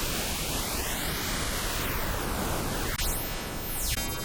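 Synthetic sound from an ANS-style spectral synthesizer playing a picture (a Kandinsky-style image) as sound: a dense hiss crossed by faint tones gliding up and down. About three seconds in it changes to a buzzy cluster of many steady tones with arching sweeps.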